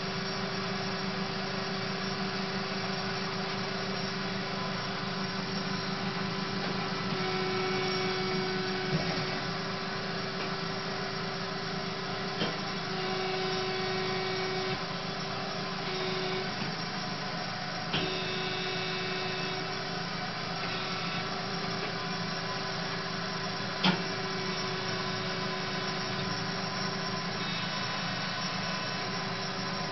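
Marvel Spartan PA13/2 automatic horizontal bandsaw running with a steady hum. A few short, sharp clicks sound through it, about four over the stretch.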